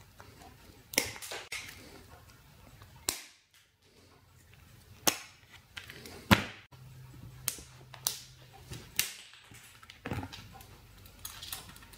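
Side cutters biting and snapping pieces off the hard black plastic case of a potted electronic component, heard as about a dozen sharp, irregularly spaced cracks and clicks, the loudest about six seconds in.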